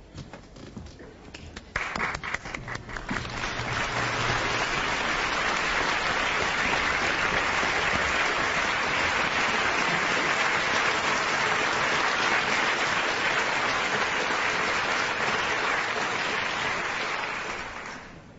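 Audience applauding: a few scattered claps that swell into steady, full applause after about three seconds, then die away near the end.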